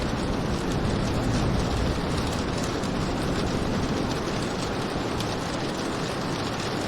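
Steady rain falling, a dense even hiss with the fine patter of individual drops.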